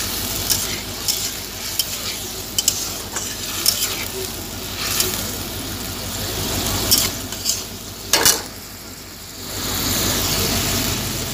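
Spatula stirring potatoes and masala in a pan, scraping and tapping against the metal every half second or so over the sizzle of hot oil and just-added water: the stage where water goes in to make a gravy. A loud knock about eight seconds in, then a brief quieter spell before the sizzle comes back up.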